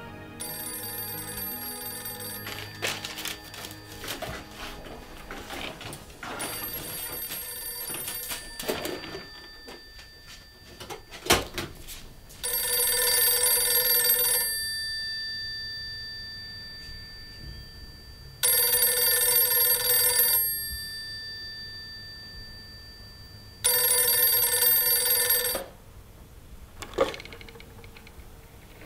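Crumpled paper rustling and crackling in the hands, then an old desk telephone's bell ringing three times, each ring about two seconds long with pauses of about four seconds between them. A sharp click near the end as the handset is lifted off the cradle.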